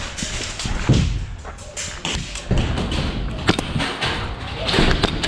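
A run of knocks and sharp clicks from play in an airsoft game, with heavier thuds about a second in and again about two and a half seconds in.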